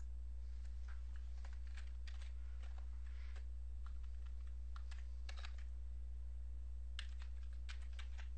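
Computer keyboard keys tapped in a few short bursts of clicks, over a steady low electrical hum.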